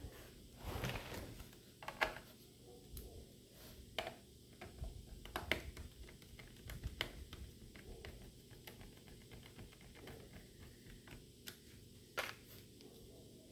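Scattered light clicks, taps and knocks of plastic laptop parts being handled and fitted together during reassembly, with a short rustle about a second in.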